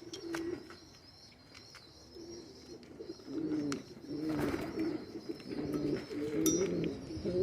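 Domestic pigeons cooing, low rolling coos repeating from about two seconds in, with a few sharp clicks between them.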